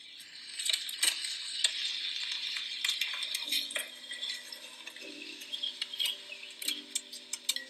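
Pen scratching across paper while writing notes by hand, a dense hiss with many small taps and clicks. Faint music notes come in about halfway through.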